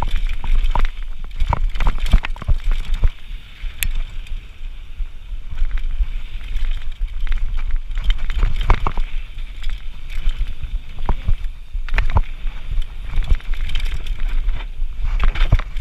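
Downhill mountain bike ridden fast over a rough dirt trail, heard from a camera mounted on the rider: a steady low rumble of wind buffeting and tyre noise, broken by frequent sharp clicks, knocks and rattles as the bike hits bumps.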